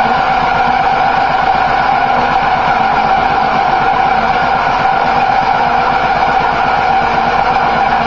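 Hose-fed handheld air tool running steadily at high speed on the car body's spring seat, a continuous even whine with no pauses.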